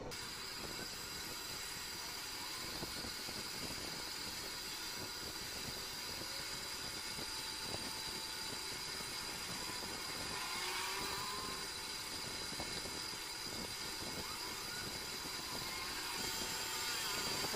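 Steady whirring hiss from a small motor such as a fan, with a faint high whine running through it and a slight swell about ten seconds in.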